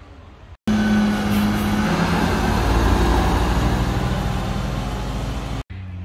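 A heavy truck's engine, almost certainly the water tanker truck pulling away, running loud and close with a deep rumble and a rushing noise; the engine note drops in pitch about two seconds in. The sound starts and stops abruptly at edit cuts.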